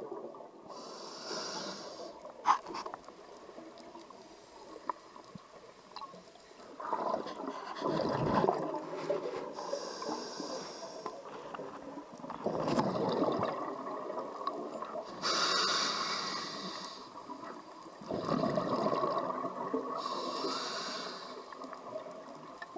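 Scuba diver breathing through a regulator underwater: a hissing inhale, then a rush of bubbling exhaust bubbles, repeating about every five seconds. A sharp click about two and a half seconds in.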